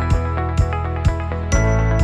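Intro music with a steady beat of about two strikes a second over held bass and chords.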